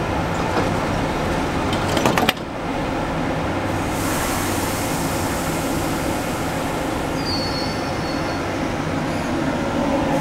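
Cleveland RTA Red Line heavy-rail car standing at the platform with its equipment humming steadily. About two seconds in, its doors close with a quick clatter and a thud. About four seconds in, a steady hiss of air starts, and near the end the train begins to pull away.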